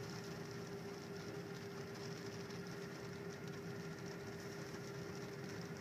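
Steady running noise of a vehicle heard from inside its cabin: an even hum with a constant tone that does not change.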